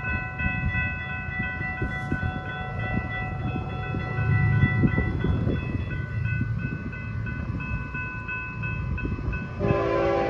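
Florida East Coast freight train rumbling through a grade crossing, with clanks from the passing cars while the crossing bell rings in a steady repeating pattern. A train horn chord sounds about 9.5 seconds in.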